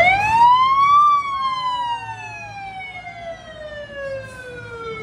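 Fire truck siren sounding one long wail: it climbs quickly to its peak about a second in, then falls slowly and steadily in pitch.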